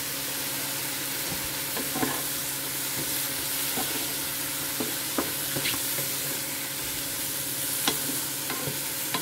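Sliced mushrooms sizzling in butter in a nonstick frying pan while a wooden spatula stirs them: a steady sizzle with scattered scrapes and taps of the spatula against the pan.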